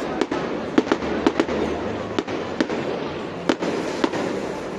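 Fireworks display going off: irregular sharp bangs of bursting shells, about two a second, over a steady background hiss.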